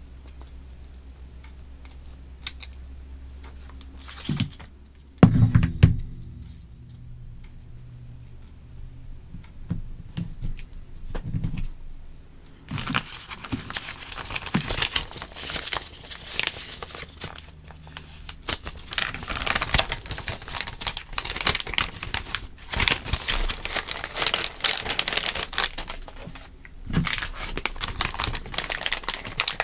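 Plastic SMD component cut tape being snipped with scissors and handled. There are a few small clicks and a single loud knock about five seconds in. From about thirteen seconds on there is a near-continuous crinkling and crackling of the plastic tape.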